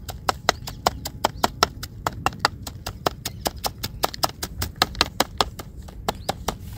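Steel cleaver chopping fresh herbs on a wooden block: a fast, even run of sharp chops, about five a second, stopping near the end.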